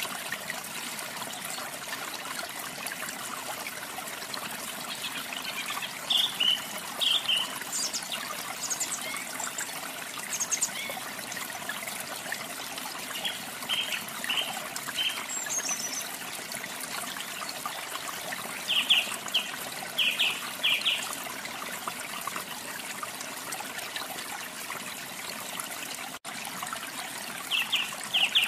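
Steady trickling, running water, with several short bursts of bright bird chirps, a few quick chirps at a time. The sound drops out for an instant near the end.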